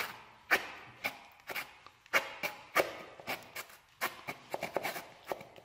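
Hand bone saw rasping through a deer's pelvic bone in short, sharp strokes, about two a second.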